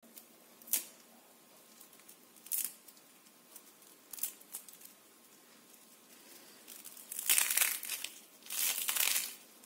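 Crisp fried chakli (rice-flour murukku) snapped and crumbled by hand: a few sharp cracks in the first half, then two longer bouts of crunching near the end. It is very crispy.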